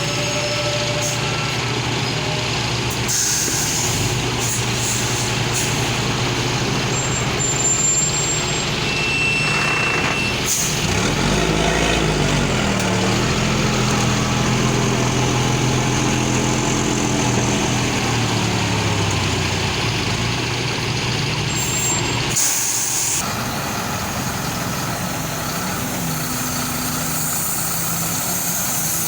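Heavy truck engine running in road traffic. Its pitch dips and climbs again about eleven seconds in, then holds steady for several seconds. Two short bursts of hiss come, one near the start and one about three quarters of the way through.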